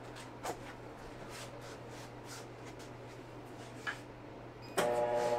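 A faint steady hum with a couple of soft knocks, then near the end a band saw's electric motor is switched on, starting suddenly and loudly with a whine that begins to climb as the blade spins up.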